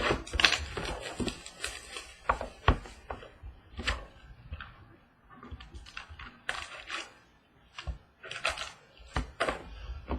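A trading-card box and its foil packs being handled and torn open: irregular crackling, crinkling and sharp clicks.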